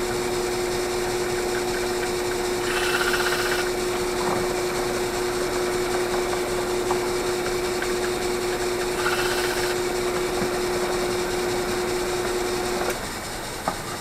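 Drill press motor running with a steady hum while a bit dresses the old rubber shaft seal seat of a sump pump housing. Two short, harsher grinding bursts come about three and nine seconds in. The press is switched off near the end and the hum stops.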